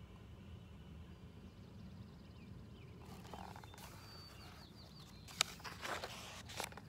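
Quiet outdoor ambience with a few faint bird chirps a little past halfway. Near the end a picture-book page is turned, giving a click and short paper rustles.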